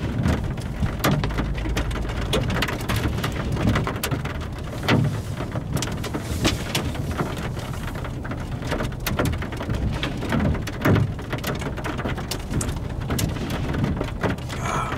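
Rain from a thunderstorm pattering, with many individual drops striking close by as sharp, irregular ticks over a steady wash and a low rumble.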